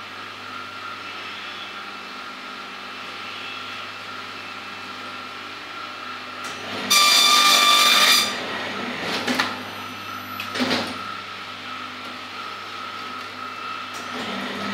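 Desktop perfect binding machine running with a steady hum; about seven seconds in it gives a loud, high whine lasting about a second, followed by two knocks from the machine's moving parts.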